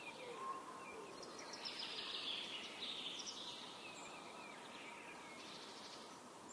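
Faint outdoor nature ambience: small birds giving scattered short, high chirps over a steady background hiss.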